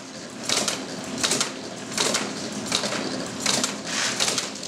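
Motor-driven pecan cracker running: the electric motor hums steadily while pecans crack through the mechanism in loud crunching bursts about every three quarters of a second.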